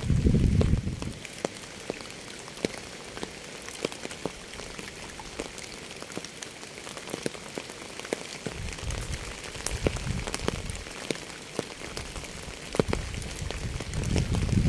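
Steady rain with many distinct drops clicking close by. A low rumble swells at the start, again about nine to eleven seconds in, and near the end.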